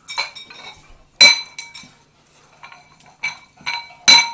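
A dog eating from a metal food bowl: about six sharp clinks, each with a short metallic ring, as the bowl is knocked while she eats, the loudest about a second in and near the end.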